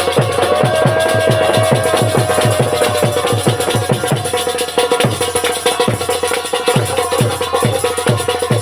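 Instrumental interlude of a Bundelkhandi Rai folk song: a steady drum beat of about three strokes a second, with a sustained melodic line over it.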